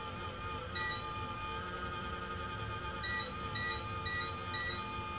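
Induction cooker's control panel beeping as its buttons are pressed: one short high beep, then a run of four beeps about half a second apart. Under them the cooker runs with a steady faint whine.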